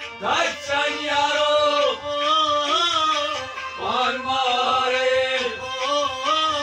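A man singing to his own harmonium accompaniment, his voice sliding up into long held notes over the harmonium's steady reed chords, with an even low beat underneath.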